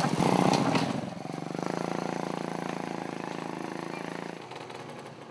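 Small motorcycle engine of a motorized tricycle taxi passing close by and pulling away. It is loudest in the first second, then runs steadily and fades out about four seconds in.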